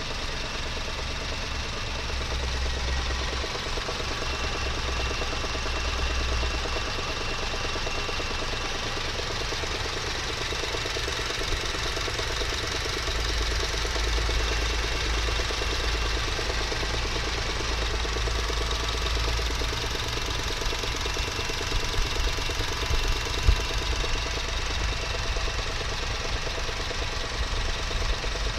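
Honda R20A3 2.0-litre four-cylinder engine idling steadily with a fast knocking rattle, a noise the owner traced to a worn air-conditioning bearing.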